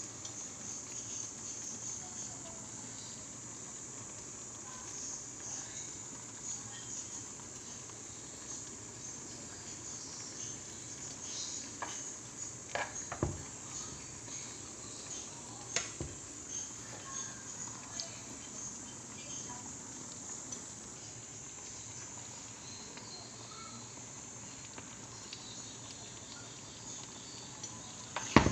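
Mung bean stew simmering in a frying pan: a steady bubbling hiss with small scattered pops. A few sharp knocks, likely the plastic spoon against the pan, come about halfway through, with a louder one near the end.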